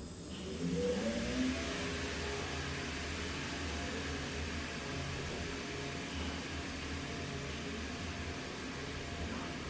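Otis Gen2 elevator's gearless drive and machine whining up in pitch as the car accelerates away, then settling into a steady hum and whir while it travels, with a thin high-pitched whine over it throughout.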